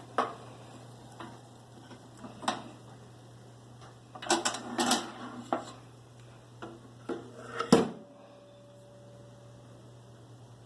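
Metal utensil clinking and clattering against a toaster oven's pan and rack as chicken cutlets are turned over, over a low steady hum. There are a few single sharp clicks, a busier run of clatter a little before the middle, and the loudest clack about three-quarters through.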